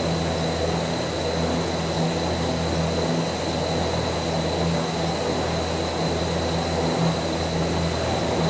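Large car-wash brushes spinning: a steady whirring whoosh of bristles through the air over a low motor hum.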